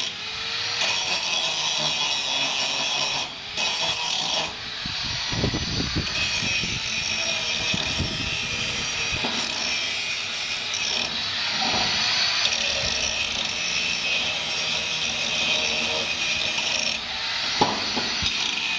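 Angle grinder grinding steel at the welded bolt barrel on a metal gate: a continuous harsh, high grinding, dropping briefly twice around three to four seconds in as the disc eases off the metal.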